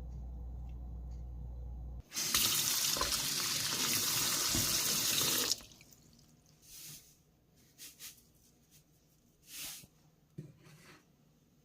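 A steady low hum, then a water tap turned on about two seconds in, running hard for about three and a half seconds and shut off abruptly, followed by a few soft knocks and rustles.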